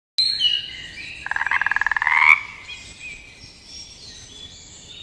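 A frog calling: one rattling croak of rapid, even pulses, about a second long, that rises in pitch just before it stops. Fainter high chirping runs underneath it and carries on afterwards.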